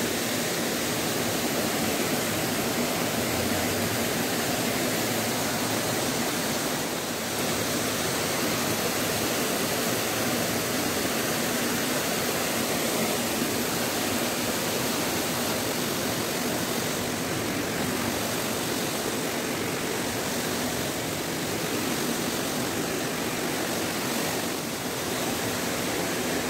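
Fast, shallow stream rushing steadily through riffles.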